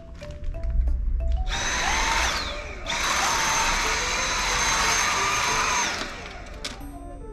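Vacuum cleaner motor running with a steady high whine, cutting out briefly about halfway through, then running again and stopping about six seconds in. A light background melody plays throughout.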